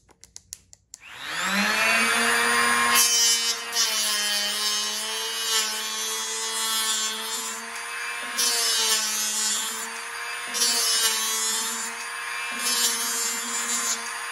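A few clicks, then a 12-volt cordless hand planer's motor spins up with a rising whine about a second in. It then shaves a wooden 2x6 in several passes, the loud cutting noise swelling and easing over the motor's steady whine.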